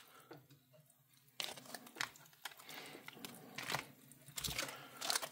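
Plastic MRE ration packets being handled, crinkling and rustling in irregular bursts with small clicks, starting about a second and a half in.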